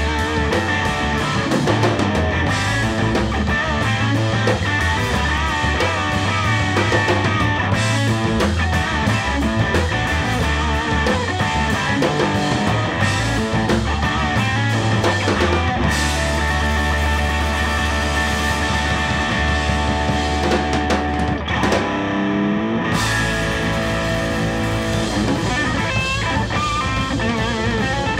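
Live rock band: a Gibson Les Paul electric guitar playing lead over electric bass and a drum kit. Long held notes ring out about two thirds of the way through, and the cymbals drop out for about a second before the full band comes back in.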